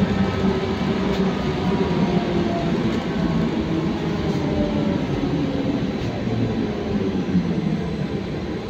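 Interior of a Trolza-5275.07 Optima trolleybus on the move: the electric traction drive whines in several pitched tones that fall slowly in pitch, over a steady rumble of the running gear. It grows quieter near the end.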